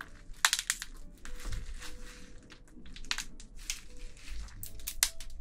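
Spicy-marinated raw crab (yangnyeom gejang) squeezed and pulled apart in gloved hands: irregular wet crackles and squelches as the shell gives and the thick sauce squishes, with sharper cracks about half a second in and near the end.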